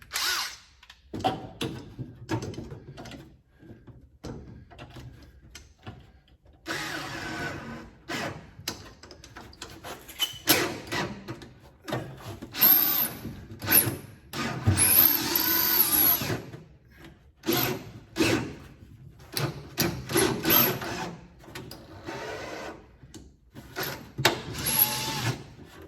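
Electric drill boring holes through sheet metal for pop rivets, run in several short bursts of one to two seconds with the motor's whine changing speed, and short clicks in between.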